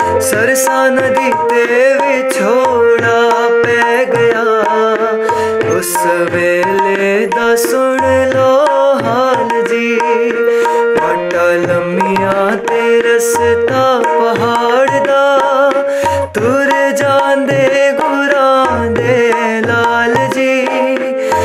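Tabla and harmonium playing a devotional Punjabi piece. The harmonium holds steady reed chords under a moving melody, and the tabla keeps a regular rhythm with deep bass-drum strokes.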